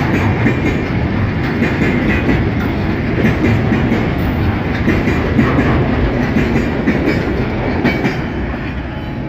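Freight train of loaded container flatcars rolling past at speed, wheels clicking over the rail joints in a steady clatter that eases slightly near the end.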